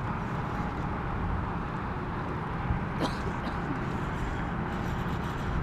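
Steady low rumble of open-air noise over water, with one short click about three seconds in.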